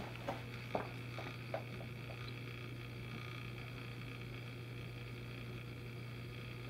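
Feet stepping onto a digital bathroom scale: four or five soft taps and creaks in the first second and a half, then a steady low hum while the scale weighs.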